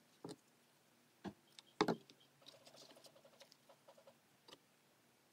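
Molded paper egg-carton scraps handled and pressed down onto a cardboard base: a few soft knocks, the loudest about two seconds in, then light scratchy rustling.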